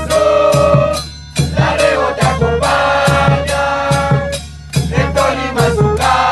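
Spanish-language football supporters' chant sung by a group of voices over drums, with two short breaks between the sung lines.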